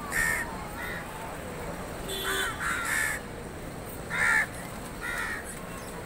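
Crows cawing: about six short, separate caws, over steady background noise.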